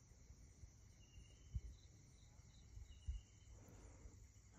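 Near silence with crickets faintly chirping in short trills. Two soft low thumps, about a second and a half apart.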